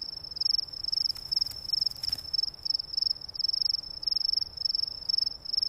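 An insect trilling steadily on one high pitch in rapid pulses, cutting off suddenly at the end.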